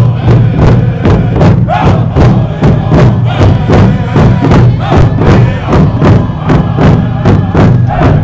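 A drum beaten in a steady, even rhythm of about three beats a second, with a crowd of protesters singing or chanting along.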